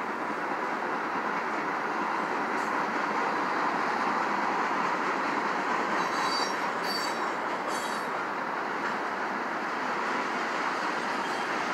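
CSX freight train's hopper cars rolling past, a steady rumble of steel wheels on rail. About six seconds in come three short, high-pitched squeals from the wheels.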